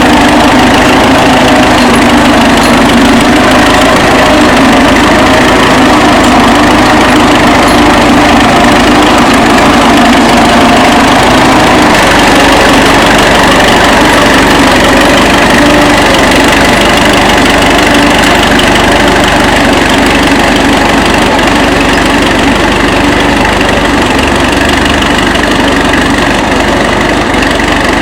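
1935 Fordson tractor's four-cylinder engine running loud and steady at an even speed, with no revving up or down.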